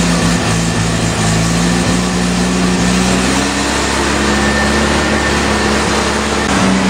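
Freshly rebuilt Mazda 12A two-rotor rotary engine of an '84 RX-7 idling steadily on the choke as it warms up, heard from the driver's seat. Its note shifts slightly about three seconds in.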